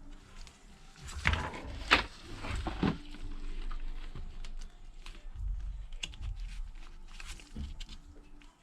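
Light clicking and scraping of small repair handling as a thin plastic card is worked in between an iPad's battery connector and the logic board to separate the battery. Two sharp clicks stand out, about one and two seconds in.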